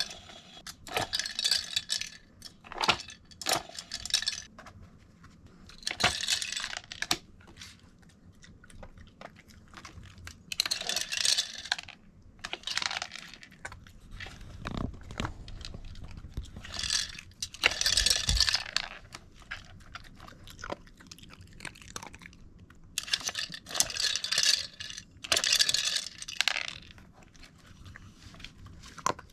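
A mame shiba dog working a treat puzzle toy. Irregular bursts of rattling and clattering come as the toy is pushed about and treats shift inside it, with some crunching as treats are eaten.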